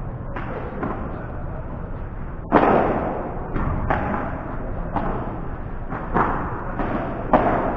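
Padel rally: a series of sharp knocks of rackets hitting the ball and the ball striking the court and walls, at irregular spacing of roughly one a second, the loudest about two and a half seconds in.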